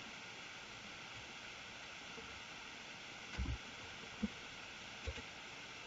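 Faint steady hiss of a microphone's background noise, with three soft low thumps in the second half.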